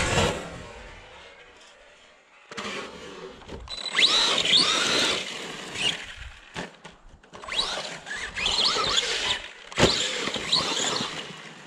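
Electric motor of an Arrma Big Rock RC monster truck whining in repeated bursts of throttle, its pitch sweeping up and down with each burst, along with the noise of the tyres on the track. There is a single sharp knock just before the last burst.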